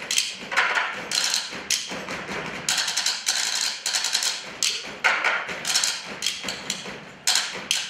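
Table drumming: four players beating wooden tabletops with wooden spoons in rhythm, in flurries of rapid sharp wooden taps and knocks with short breaks between them.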